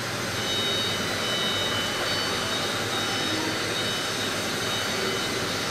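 CNC milling machine for round columns running: a steady rushing noise with a faint high whine.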